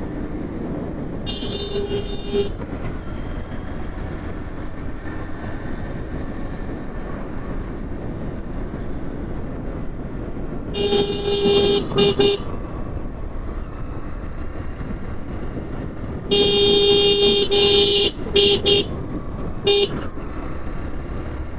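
Vehicle horn honking in traffic over the steady engine and wind noise of a moving motorcycle. One honk comes about a second in, two more around eleven to twelve seconds, and a longer run of honks near the end.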